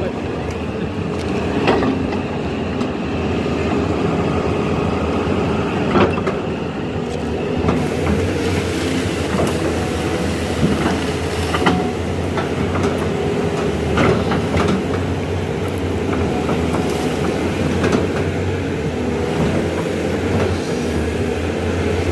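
Caterpillar tracked excavator's diesel engine and hydraulics running steadily as the boom and bucket work, with several sharp metal clanks a few seconds apart.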